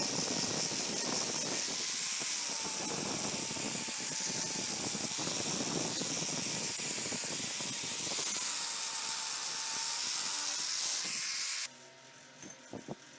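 Angle grinder grinding the steel of an axe head held in a vise: a steady motor whine under the hiss of the disc on metal. It cuts off abruptly near the end, leaving a quiet background with a few light knocks.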